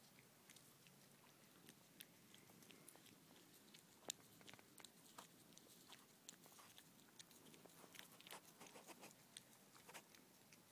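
Faint, irregular licking and smacking clicks of a husky and a cat eating ice cream from paper cups.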